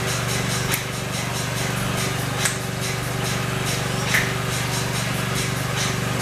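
Music with a deep, steady bass and a regular beat, a sharp hit about every second and a half.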